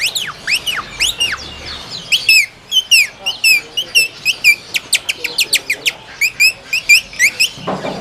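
Caged songbirds singing: a rapid, continuous string of short chirps and whistled notes, many of them quick upward and downward sweeps.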